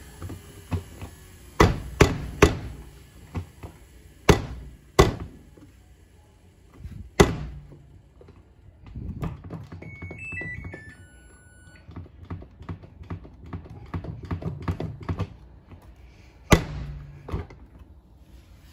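Samsung front-loading washing machine tumbling a wet load: a series of heavy thuds, some followed by a brief motor hum, with lighter clicks between them. About ten seconds in comes a short run of electronic beeps stepping up and down in pitch.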